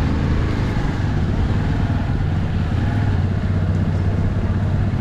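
A motor vehicle on the move, a steady low engine and road rumble without breaks.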